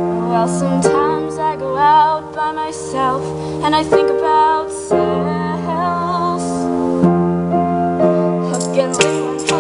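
A woman singing a slow melody with vibrato over sustained piano chords, the lyrics a parody about thinking about cells.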